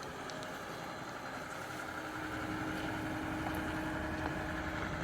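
A farm loader's engine running steadily, growing slightly louder as it works the pole along.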